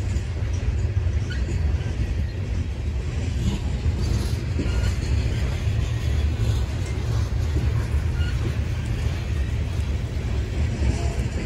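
CSX freight train of open-top coal hoppers rolling past at close range: a steady low rumble of steel wheels on rail.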